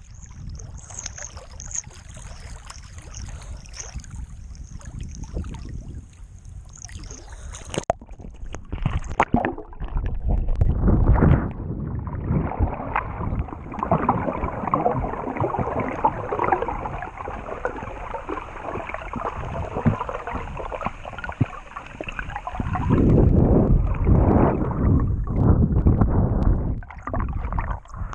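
Water sloshing and gurgling around a small boat, getting louder from about ten seconds in, with rough surges later on. A high, steady, wavering buzz sounds over low rumble for the first eight seconds, then stops suddenly.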